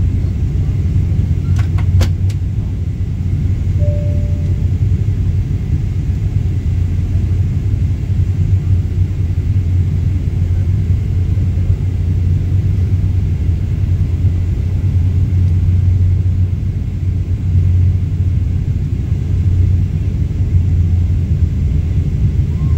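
Steady low cabin drone of a Boeing 777-300ER in flight on its descent, from its GE90 engines and the air rushing past the fuselage, heard from a window seat. A few faint clicks come about two seconds in.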